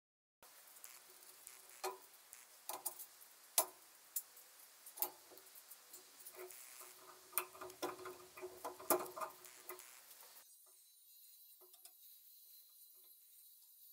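Sharp metallic clicks and clinks of a spanner and small steel parts as a diesel injection pump is put back together, some of them ringing briefly. About ten seconds in the sound cuts to a quieter stretch with only a few faint ticks.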